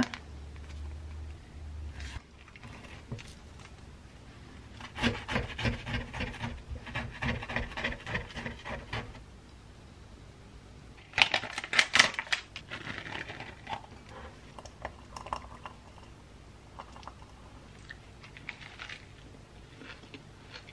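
Sandwich-making sounds on a wooden cutting board: soft rubbing and squeezing, then a stretch of rapid crisp scraping as a knife saws through the toasted sandwich, and a louder crackly burst about eleven seconds in.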